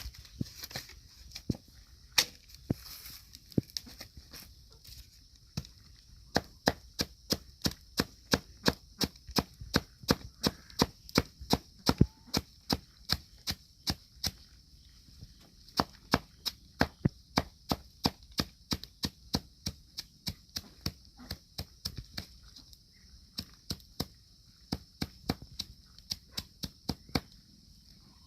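Rapid, regular chopping strikes of a blade, a few scattered at first and then about two or three a second, over a steady high hiss.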